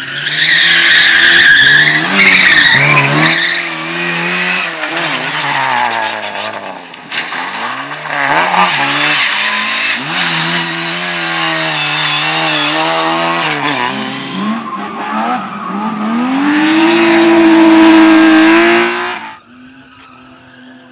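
Rally car driven hard through a slalom course, its engine revving up and dropping back again and again while the tyres squeal, loudest in the first few seconds. A long climbing rev builds near the end, then the sound cuts off suddenly.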